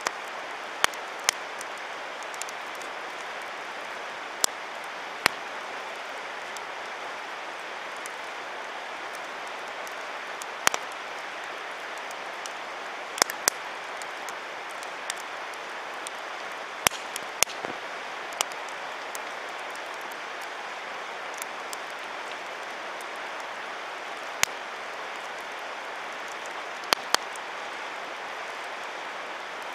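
Wood campfire crackling, with sharp pops at irregular moments over a steady rushing hiss.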